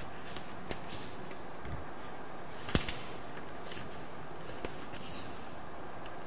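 Paper note sheets rustling softly now and then as they are handled and turned, over a steady hiss of room tone, with a sharp click a little under three seconds in.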